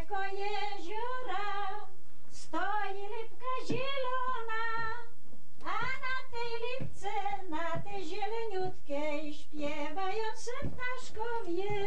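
An elderly woman singing solo, her voice wavering with vibrato, in phrases of a few seconds with short breaths between.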